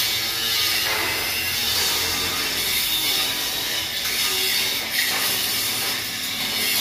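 Angle grinder with an abrasive disc grinding steel truck bodywork: a continuous high, hissing grinding noise that eases briefly about a second in and again around five seconds in as the disc shifts on the metal.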